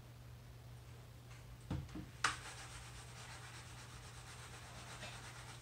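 A plastic lollipop mold is handled on a wooden tabletop: a couple of dull knocks and a sharp click, then a few seconds of steady rubbing and scraping. A low steady hum runs underneath.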